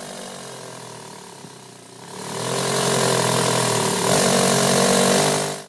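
Quasiturbine air/steam engine running with its steam exhaust hissing. About two seconds in it grows much louder, a steady whine under a strong hiss, and it cuts off suddenly at the end.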